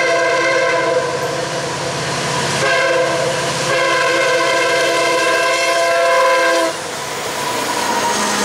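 Diesel locomotive air horn sounding a multi-note chord: a long blast ends about a second in, then after a pause comes a short blast and a long blast of about three seconds that cuts off sharply. The pattern matches the end of the standard long-long-short-long grade-crossing signal. Under it the locomotives' engines and the loaded train rumble steadily as it approaches and passes.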